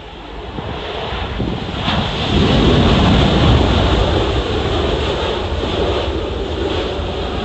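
Jet airliner passing close by, its engine noise building over the first two seconds, loudest about three seconds in, then slowly easing. Gusty wind buffets the microphone.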